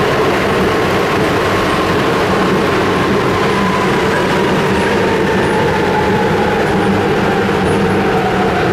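Communist-era subway train running through a tunnel, heard from inside the car: a loud, steady rumble of wheels and car body, with a faint whine that falls slowly in pitch.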